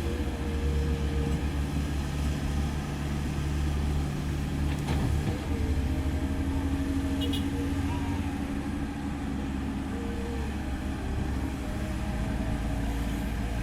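Komatsu PC130F hydraulic excavator's diesel engine running steadily while it digs, with its note changing about five seconds in as the load shifts. A faint knock comes just before the change.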